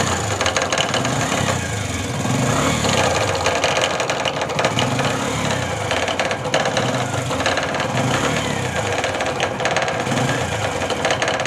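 Bajaj CT 100's single-cylinder four-stroke engine running with a loud knocking clatter, its note rising and falling every couple of seconds. The noise comes from the loose crankshaft balancer weight, its lock cut through, striking the inside of the clutch cover.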